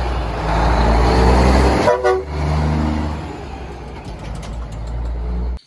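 Semi-truck (tractor-trailer) driving past with its diesel engine rumbling and its horn sounding, with a short blast about two seconds in. The sound eases off in the second half and cuts off suddenly near the end.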